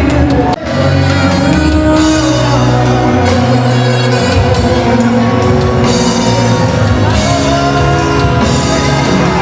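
Loud live music: a band playing with drums, guitar and a singer, with a steady beat and a short break about half a second in.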